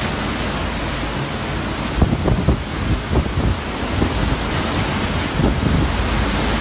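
Category 5 Hurricane Irma's wind and driving rain blowing in a steady loud rush. From about two seconds in, repeated short gusts buffet the microphone.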